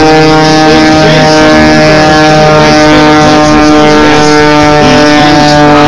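The 400-horsepower Lycoming engine and propeller of a Pitts Viper aerobatic biplane running on a low pass: a loud, steady drone with many even overtones and no change in pitch.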